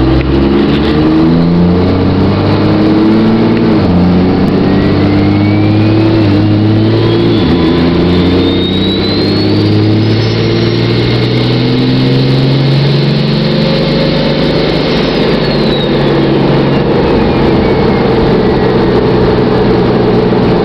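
Twin-turbo Cummins diesel in a Dodge pickup with a 5-inch straight pipe, accelerating; the engine note drops sharply twice as the automatic shifts up. A high turbo whistle rises over several seconds, holds, then falls away.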